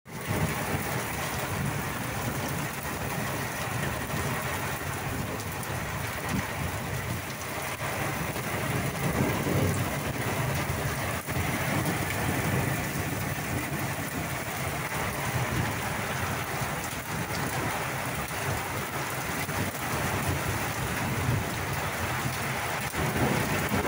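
Thunderstorm downpour: heavy rain pouring steadily onto terracotta roof tiles and a ridged sheet roof.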